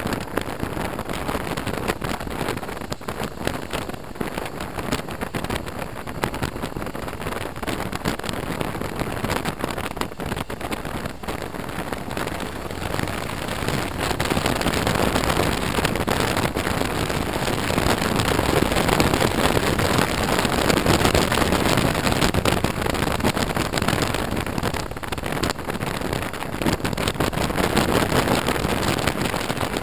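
Steady wind rush and road noise on a helmet-mounted camera's microphone while riding a BMW R1200RT motorcycle. It gets louder about halfway through, as the bike passes a car.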